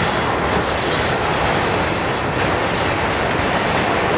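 CSX covered grain hopper cars of a long freight train rolling past close by: the steady, loud noise of steel wheels running on the rails.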